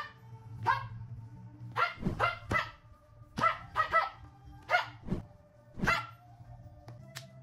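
A dog barking repeatedly, about a dozen short barks at an uneven pace, over a steady low hum.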